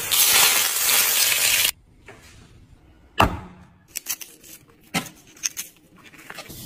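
Hot oil poured over abalone in their shells, sizzling loudly for under two seconds and then cutting off suddenly. Then sharp clicks and snips as scissors cut open a sea urchin's spiny shell: one loud click about three seconds in, and a run of smaller ones a second later.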